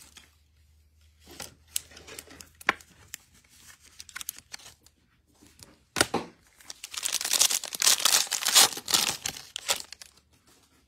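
Packaging being torn open and crinkled while trading cards are handled: scattered light clicks at first, a sharp snap about six seconds in, then about three seconds of loud crinkling and tearing.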